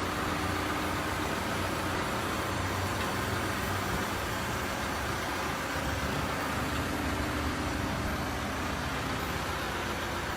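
Engine of heavy construction machinery running steadily at idle, an even low hum.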